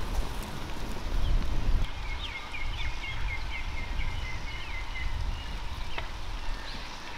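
Outdoor ambience with a steady low rumble; from about two seconds in, a bird gives a quick run of short chirps, around four a second, lasting about three seconds.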